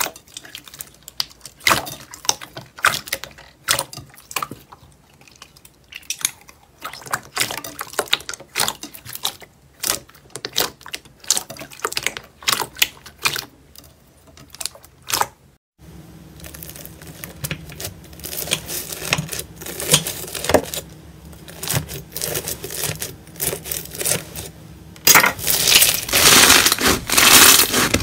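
Soft pudding slime being pressed and kneaded by hand, with a fast, uneven run of sharp pops and clicks as trapped air bursts. After a cut about halfway through, quieter, denser crackling follows, and near the end foam-bead slime being squeezed gives a loud, dense crackling crunch.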